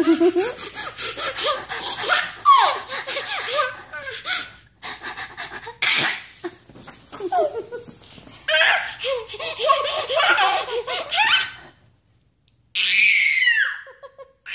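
A toddler laughing hard in long runs of belly laughs, broken by short pauses. Near the end a brief silence, then a high squeal that falls in pitch.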